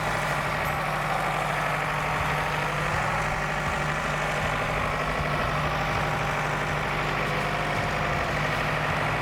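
An engine idling steadily, its even hum unchanged throughout.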